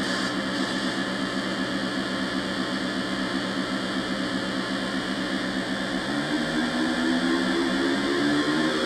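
Homemade noise-and-rhythm synthesizer, CD4017 decade counters driving 4046 PLL oscillators, putting out a dense, distorted, buzzing drone with steady pitched tones. About six seconds in, a new set of tones comes in and slides upward in pitch as the knobs are turned.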